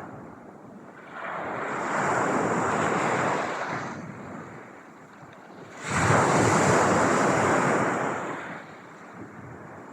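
Ocean waves breaking and washing in two slow swells. The second swell comes in suddenly about six seconds in and is the louder one.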